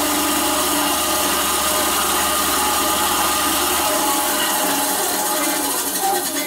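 Work Zone 350-watt 8-inch benchtop bandsaw's motor and blade running with no load on its first start-up, a steady hum and whirr. About two-thirds of the way through the low hum drops out as it is switched off, and it begins to wind down near the end.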